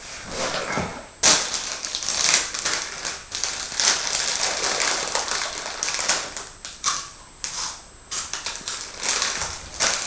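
Plastic crisp packet crinkling and rustling as it is handled and a hand rummages inside it, in irregular crackly bursts starting about a second in.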